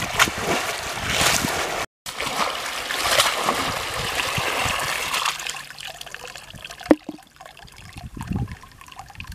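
Muddy water splashing as a woven basket is plunged and churned in a shallow pool, then a steady pour of water draining out through the basket's weave as it is lifted. The pour fades to trickling and dripping about halfway through, with one sharp knock near the end.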